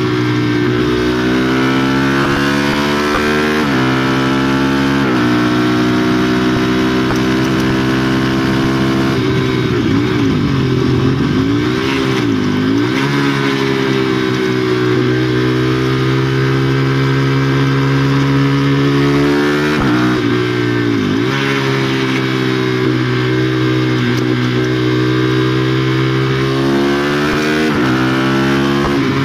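A 2016 KTM Duke 390's single-cylinder engine through a de-catted exhaust, running hard on the road: its pitch climbs and drops back over and over as it is shifted up through the gears with a quickshifter and eased off for bends, with wind rushing over the microphone throughout.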